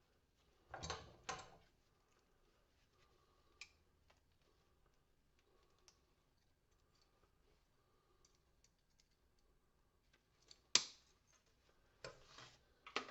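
Sparse clicks and knocks of small pieces of porcelain lamp holders and their brass parts being handled on a workbench: a short double knock about a second in, a single sharp click, the loudest, past the ten-second mark, and a brief rattle near the end.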